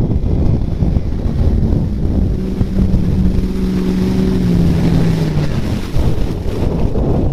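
Pickup truck engine under hard throttle as the truck churns through mud and water, the revs climbing a little and then dropping away about five and a half seconds in. Wind buffets the microphone.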